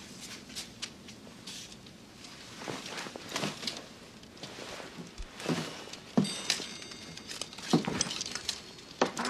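Scattered light knocks and clicks, with a short high glassy ring about six seconds in as a glass-cased brass device is handled.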